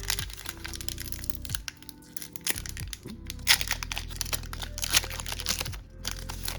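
Foil wrapper of a Pokémon card booster pack crinkling and tearing open in a run of sharp crackles, over steady background music.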